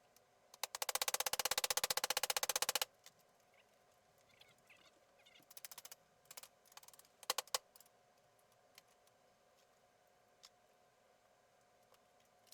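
A rapid, ratchet-like run of clicks lasting about two seconds, followed by scattered small clicks and taps of tools and parts being handled.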